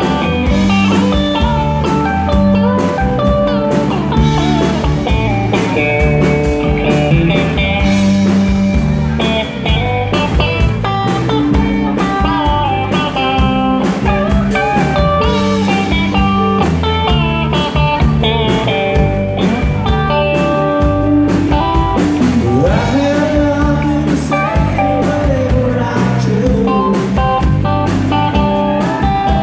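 Live rock band playing a bluesy instrumental stretch: electric guitar carries the melody with bent notes over bass and drum kit.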